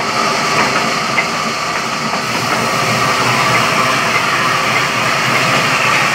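Sawmill machinery running steadily, with a few faint clicks over the continuous mechanical noise.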